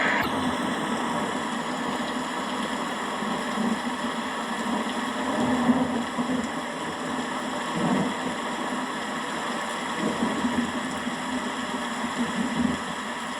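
Steady hiss of heavy rain, with a few low rumbles of distant thunder swelling up about halfway through and again near the end.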